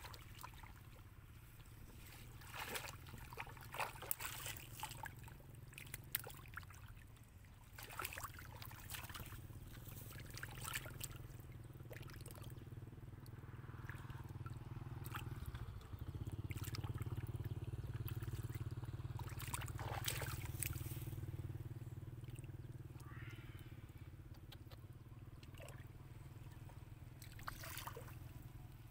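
Hands splashing and sloshing in shallow muddy water while groping in the mud for fish, in short irregular strokes. A steady low engine drone runs underneath, louder for several seconds in the middle.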